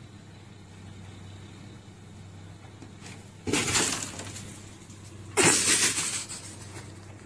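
Car windshield wipers scraping across a snow- and ice-covered windshield: two harsh scraping sweeps about two seconds apart, the first about halfway in. A low steady hum runs underneath.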